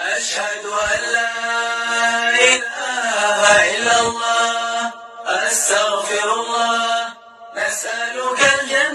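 Vocal chant: a voice chanting in long, held, wavering notes, phrase after phrase, with a short break about five seconds in and another near the end.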